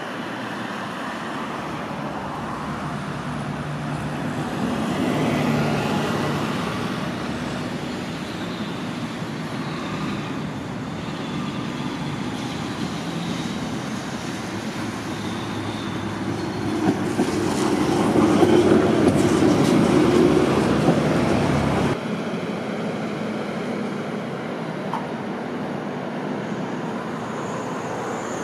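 Tatra KT4SU tram running along street track toward the listener, with a steady low hum and rail noise. It is loudest as it passes close, with a few sharp wheel clicks at the start of the pass. About 22 seconds in the sound drops abruptly to quieter steady street noise.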